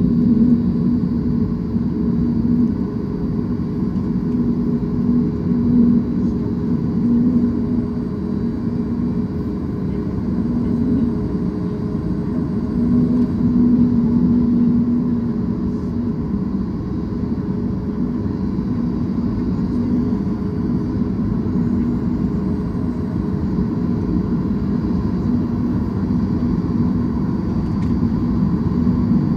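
Steady low rumble of a Boeing 737 MAX 8 airliner on the ground, heard from inside the cabin, with a constant low hum running through it.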